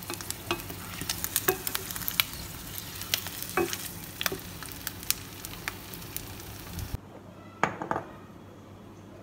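Peeled hard-boiled eggs frying in hot oil in a nonstick pan: steady sizzling with many sharp pops and clicks as a wooden spatula turns the eggs. About seven seconds in the sizzling cuts off, leaving a much quieter background with a few light clicks.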